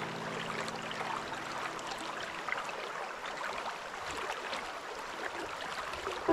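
River water flowing, a steady rippling hiss with many small trickling splashes.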